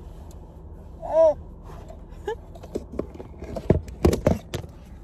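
A six-month-old baby gives one short squeal that rises and falls, about a second in, followed by a run of knocks and bumps that are loudest near the end, over a low steady hum.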